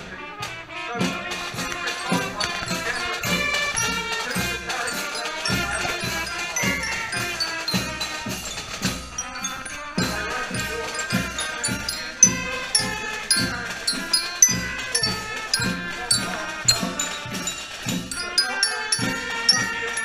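Marching band playing on the move: brass melody and bright marching glockenspiel notes over a steady marching drum beat. The music breaks off briefly about halfway through and picks up again.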